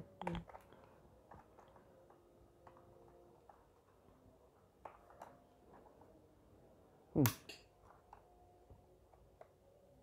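Faint clicks and taps of fingers working the retention clips and plastic around laptop DDR3 RAM modules in their slots as the modules are released. About seven seconds in there is one louder, short sound that drops quickly in pitch.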